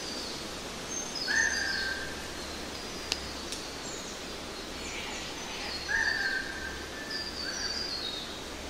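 Birds chirping over a steady background hiss: short high notes falling in steps, with a longer, steady lower note about a second in and again near six seconds. A single sharp click a little after three seconds in.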